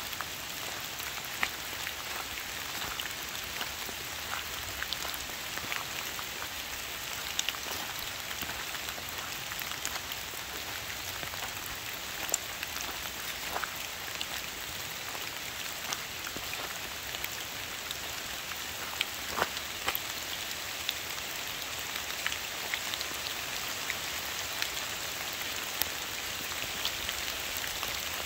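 Steady rain falling on trees and fallen leaves: an even hiss scattered with many sharp ticks of single drops.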